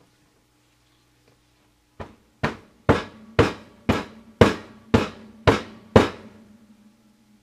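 A loaf soap mold full of freshly poured soap batter knocked down on the countertop nine times, about two knocks a second, each with a short ring.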